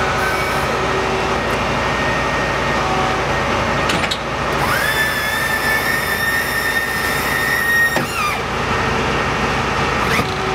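Heavy stone-spreader truck running steadily, with a high whine that rises about five seconds in, holds for about three seconds and then drops away as the hydraulics raise the dump bed. There are a couple of short clicks, one just before the whine and one near the end.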